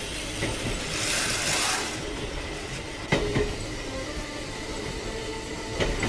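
Battery-powered Plarail Connor toy train running along plastic Plarail track, its small motor and wheels making a steady running noise, with a sharp click about three seconds in.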